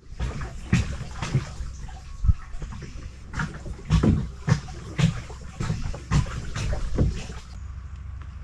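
Water sloshing and slapping against a plastic pedal boat's hull in uneven pulses, about two a second.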